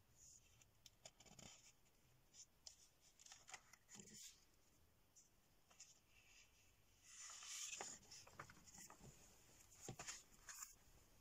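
Faint rustling and soft clicks of paper and thin plastic sheets being handled and flipped over, with a longer, louder rustle about seven seconds in and a few sharper ones near the end.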